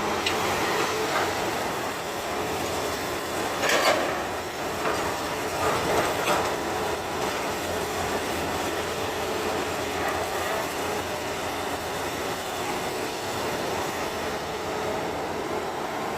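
Excavator at work: steady machine noise with a few metallic clanks, the loudest about four seconds in and another about six seconds in.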